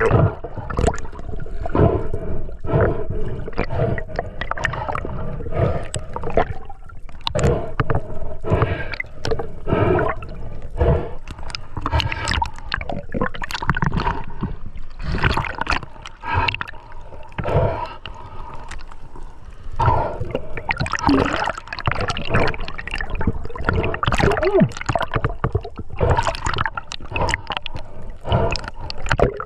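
Water gurgling and sloshing right at the microphone, a steady stream of irregular bubbly crackles and splashes.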